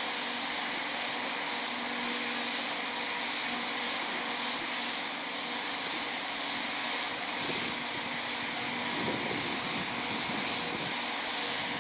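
Steady outdoor hiss with a faint steady hum underneath.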